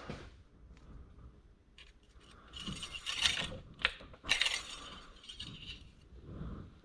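Engine oil dipstick of a 2007 Honda CR-V being pushed into its tube and drawn back out to read the oil level: two short metallic scrapes with a click between them.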